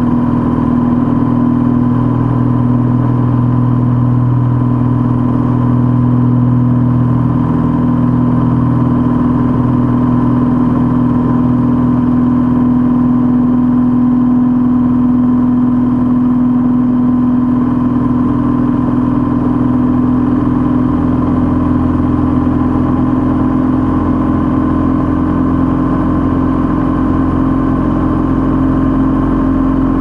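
Vehicle engine running steadily at a nearly constant pitch.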